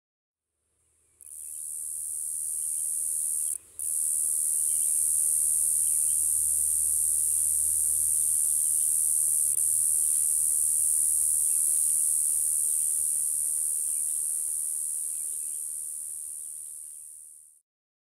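Say's cicada (Okanagana rimosa) singing its mating call: one long, steady, high-pitched buzz, broken once briefly a few seconds in.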